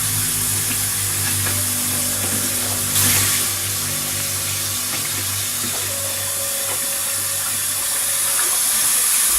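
Water running steadily from a tap into a sink, with a brief surge about three seconds in; steady low background music hums beneath it.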